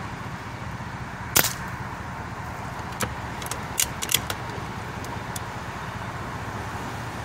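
A single sharp crack of a .22 PCP air rifle shot about a second and a half in, followed by a few lighter clicks a couple of seconds later, over a steady low hum.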